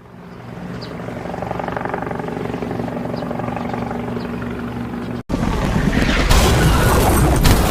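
A mechanical whirring with a steady, pulsing low hum fades in. About five seconds in it cuts off abruptly and a loud rushing noise, like static, takes over.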